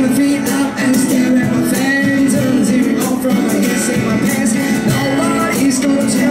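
Street buskers playing acoustic guitars, strummed steadily, with singing over them.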